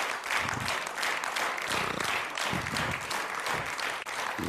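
Studio audience applauding: a dense, steady patter of many hands clapping.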